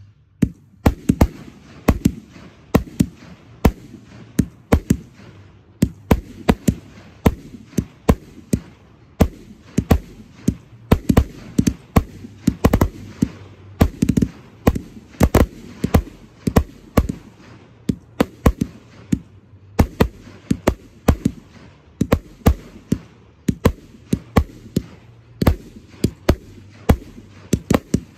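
Aerial fireworks display: shells launching and bursting in a rapid, irregular run of sharp bangs, a few each second, with fizzing and crackling between them.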